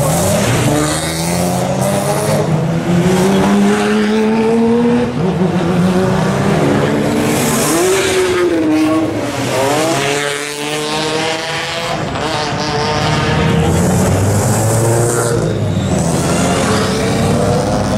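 GT race cars accelerating past one after another, a Mercedes SLK race car near the start and a Porsche 911 race car near the end. The engines rise in pitch through the revs again and again, each climb followed by a drop as the car shifts or passes.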